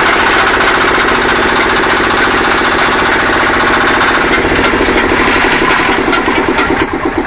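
Belt-driven chaff cutter (toka) running on a small stationary engine, chopping green fodder as it is fed in, with a fast, steady mechanical beat. Near the end the beat turns into slower, more separate pulses.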